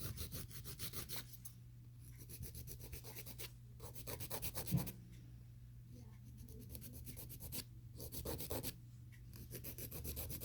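150-grit hand nail file rasping across a gel nail in quick back-and-forth strokes, several a second, in bursts with short pauses, shaping the nail.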